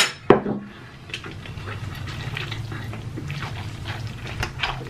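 Cheesy instant ramen noodles being slurped and chewed close to the microphone: wet sucking and mouth sounds with small ticks, and a sharp click just after the start.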